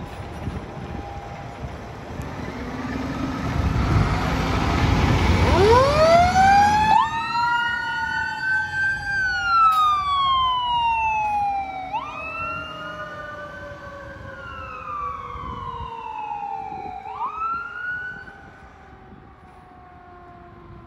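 Fire engine's diesel rumbling as it pulls out, then emergency sirens: one siren winds up and then falls slowly in pitch, while another wails up and down in cycles of about five seconds. The sirens fade away near the end.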